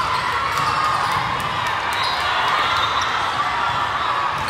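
Volleyballs being struck and bouncing on indoor sport-court floors, many scattered sharp hits from several courts at once, over a steady echoing hall din of distant voices.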